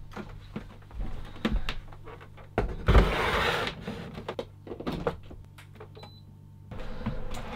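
A portable dehumidifier being set up: knocks and clatter as it is moved into place and plugged in, with a louder scraping rustle around three seconds in. A short electronic beep sounds as its button is pressed, and its fan starts running steadily near the end.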